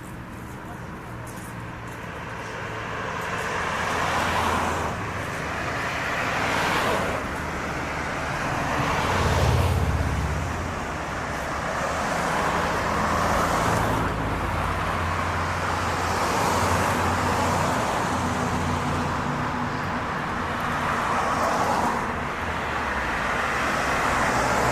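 Street traffic: several cars passing in turn, each rising and fading, over a steady low engine hum.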